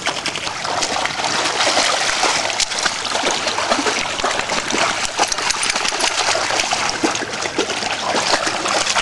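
Dogs wading and splashing through shallow lake water, a continuous run of small splashes and sloshing that builds up over the first couple of seconds.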